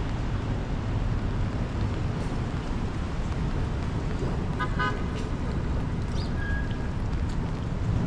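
Steady city traffic rumble. About five seconds in there is a short, quick pitched toot, like a distant vehicle horn.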